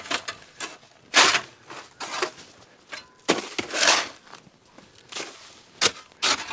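Long-handled steel scraper chopping and scraping at crusty snow and ice over gravel, in a run of irregular crunching strokes, a couple of them drawn out for about a second.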